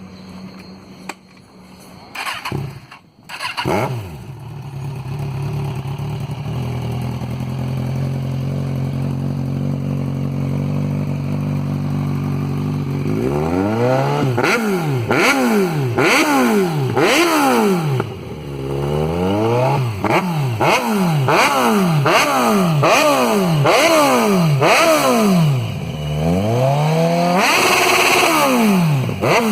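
Kawasaki Z1000 inline-four motorcycle engine running through a stainless-steel 4-into-1-into-2 full exhaust with twin tips, very loud. It idles steadily for about ten seconds, then is revved over and over in quick blips that rise and fall, with a longer rev near the end.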